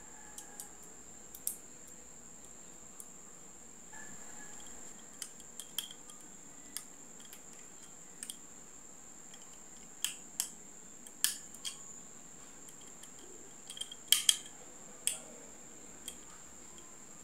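Small screwdriver turning tiny screws into a handheld microphone's metal body, with scattered sharp metallic clicks and taps, coming thicker and louder in the second half. A faint steady high-pitched whine runs underneath.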